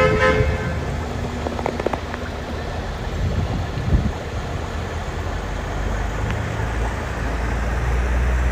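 Steady rushing noise of rain and floodwater, heard from a vehicle driving along a flooded street. A low engine rumble grows stronger in the second half, and a short horn-like tone sounds at the very start.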